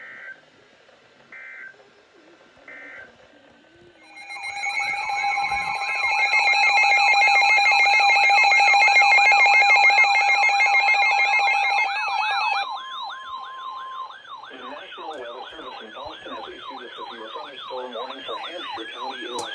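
Three short two-tone data beeps from a NOAA Weather Radio broadcast, then about four seconds in several weather alert receivers go off together. Steady alert tones are layered with fast warbling, siren-like wails, loudest in the middle. A wailing siren tone keeps going more softly near the end.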